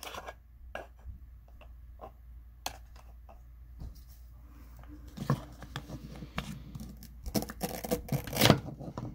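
Knife cutting an apple into pieces: scattered knocks and scraping, sparse at first and busier in the second half.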